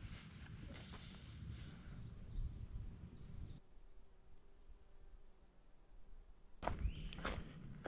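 High-pitched insect call: a thin, steady whine with a faint pulsing note just below it, about three pulses a second, coming in about two seconds in. A low rumble underneath cuts off a little past the middle, and near the end there are a few crunching footsteps on leaf litter.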